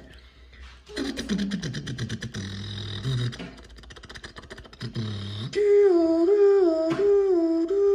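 A man imitating a fire engine with his voice: first a low, rattling buzz like an engine running, then, about two-thirds of the way in, a loud two-tone 'nee-naw' siren sung over and over, stepping between a higher and a lower note.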